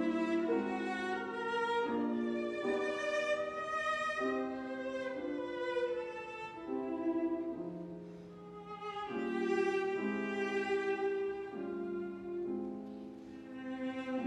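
Piano trio of violin, cello and grand piano playing classical chamber music, the bowed violin and cello carrying held, changing notes. The music softens briefly twice, about halfway through and near the end.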